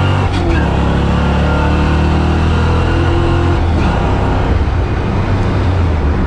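Ford 351 Windsor V8 with an X303 camshaft, heard from inside the car's cabin, running hard on an acceleration pull in a 1983 Mustang. The engine note breaks briefly about a third of a second in and changes again around three and a half seconds in.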